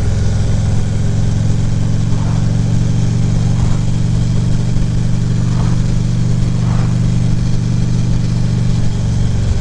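The V-twin engine of a 2014 Harley-Davidson Ultra Classic Limited motorcycle running steadily at cruising speed, with an even rush of wind and road noise.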